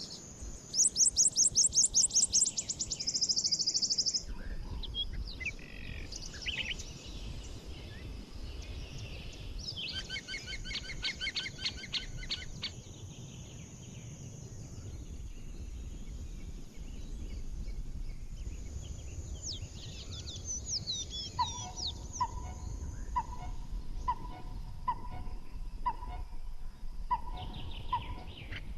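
Several birds singing and calling in a daytime forest. A loud, fast, high trill comes in the first few seconds, a rhythmic chattering phrase follows around a third of the way in, and in the last third a lower note repeats about once a second, over a steady high hiss and low rumble.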